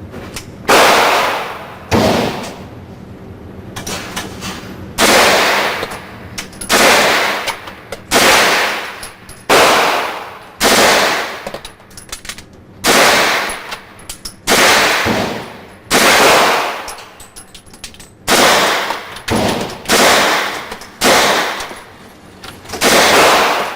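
Heckler & Koch MP5 9mm submachine gun firing about fourteen short bursts, one every second or two, each cracking loud and then dying away.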